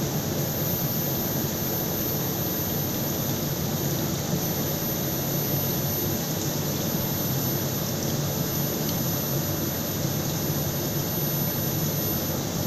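Automatic induction brazing machine running steadily while it heats a copper submersible-motor rotor's end ring to brazing heat: an even drone and hiss with a thin high whine above it.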